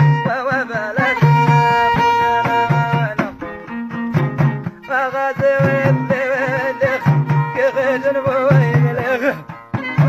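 Amazigh folk music played live: a frame drum beats a steady low pulse, about one stroke a second, under a lute and bowed fiddle playing a wavering, ornamented melody.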